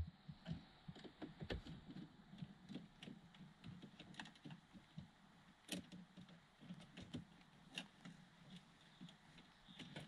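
Faint, irregular small clicks and taps of a screwdriver working out the small screws that hold the trim around a car's hazard-light switch.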